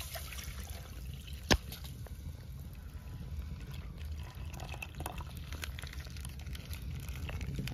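Milk pouring in a stream from a plastic pouch into a metal saucepan onto coffee powder and sugar. A single sharp click about a second and a half in is the loudest sound.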